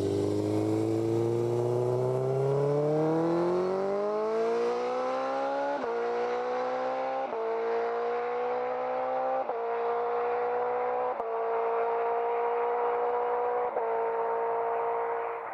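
A 2005–06 Suzuki GSX-R1000's inline-four accelerating hard, its pitch climbing steadily for the first half. It then shifts up five times, each with a brief dip and a small drop in pitch, as the quickshifter cuts the ignition for a clutchless upshift.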